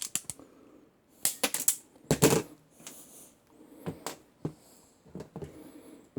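Hand-held wire stripper and crimper being worked and handled: a run of sharp clicks, two louder clattering bursts between about one and two and a half seconds in, then scattered softer clicks.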